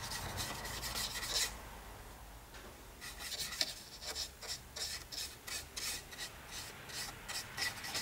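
Small stiff brush scrubbing dry charcoal powder onto a styrene plastic model building's roof in quick back-and-forth scratchy strokes. It stops for about a second and a half, then starts again about three seconds in.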